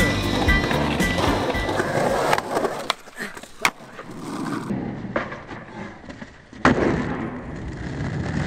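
Skateboard wheels rolling over rough asphalt, broken by sharp clacks of the board striking the ground, one especially sharp about three and a half seconds in. The rolling gets loud again near the end.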